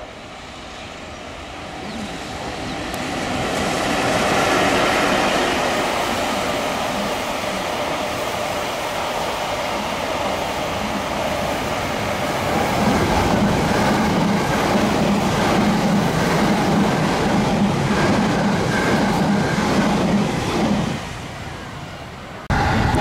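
EF65 electric locomotive hauling a rake of unpowered Odakyu 5000 series EMU cars past: the rolling rumble of steel wheels on rail builds over the first few seconds as the train nears, then holds steady while the cars go by. It drops away about 21 seconds in, and an abrupt cut to louder train noise follows just before the end.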